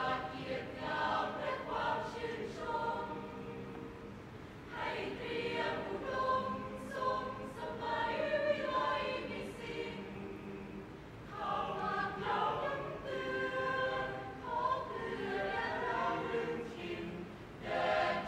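Mixed-voice school choir singing in harmony in sustained phrases, easing off to softer passages about four and ten seconds in.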